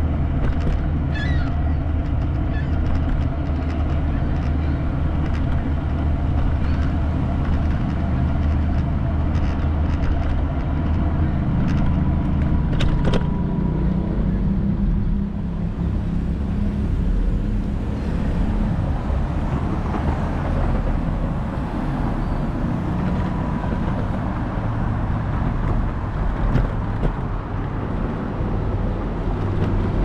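Steady low rumble of road traffic and moving vehicles.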